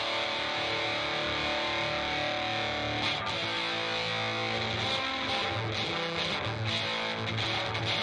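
Electric guitar played through a harmonic percolator fuzz pedal, switched on and giving a thick, heavily distorted fuzz tone as chords ring out.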